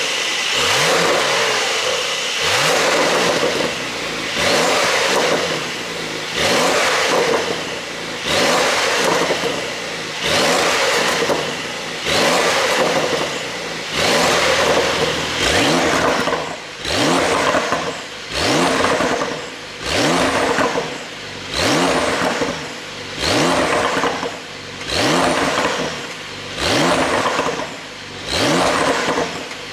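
Porsche 911 992 Carrera 4 GTS twin-turbo flat-six exhaust being revved over and over, about one rev every two seconds, each rising in pitch and then falling back.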